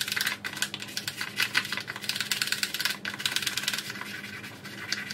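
Rapid back-and-forth scrubbing strokes scratching over the inside of a tackle box's compartments and dividers, cleaning out rust stains with degreaser.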